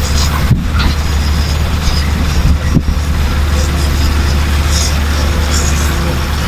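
Heavy diesel engine of an excavator or dump truck running steadily, with a couple of short knocks.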